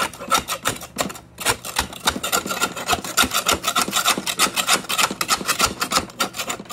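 Steel flat margin trowel scraping wet, compacted grass clippings off the inside of a steel mower deck in rapid, repeated rasping strokes. The blade peels the caked grass off in large pieces.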